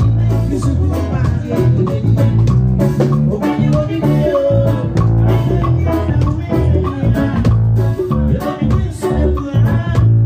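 Live Ghanaian highlife band music played through a PA: a male lead singer over electric guitar, keyboard and a drum kit.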